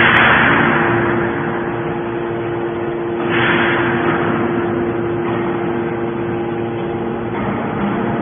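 Fully automatic horizontal hydraulic baler running: a steady machine hum with two loud hissing surges, one at the start and one about three seconds later, each fading over about a second.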